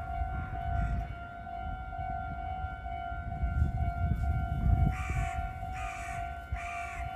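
Japanese railroad crossing's electronic warning bell ringing steadily with its repeating kan-kan tone, over a low rumble. A crow caws three times near the end.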